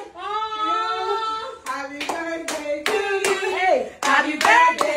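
Hands clapping, sharp claps about twice a second starting about a second and a half in, over high voices singing and whooping with gliding pitch.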